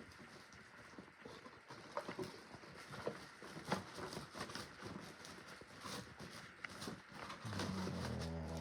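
A dog snuffling and working its mouth, giving a string of irregular wet clicks and sniffs. Near the end it lets out a low, drawn-out grumbling groan.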